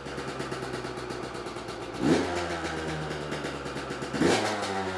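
Yamaha YZ125's 125cc single-cylinder two-stroke engine idling on a freshly rebuilt top end (new piston), warming up for its first heat cycle. The throttle is blipped twice, about two seconds in and again about four seconds in, and each time the revs rise sharply and drop back to idle.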